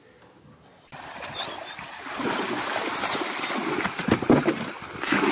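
Shallow creek water rushing and splashing as dogs run through it, starting suddenly about a second in and getting louder a second later.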